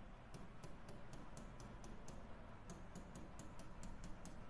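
Marker tip tapping and scratching on a writing board while short strokes are drawn: a string of faint, irregular ticks, several a second, over a low steady hum.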